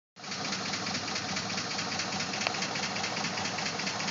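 Engine idling with a fast, regular ticking knock, which the owner cannot place as either lifter tap or rod knock.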